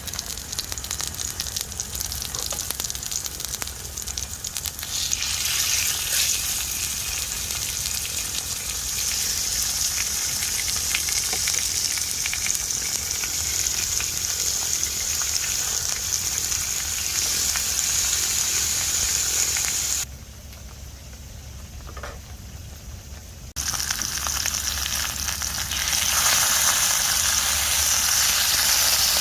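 Food sizzling and spattering in hot oil in a pan, a dense crackling hiss. It drops away suddenly for a few seconds about two-thirds of the way through, then returns louder.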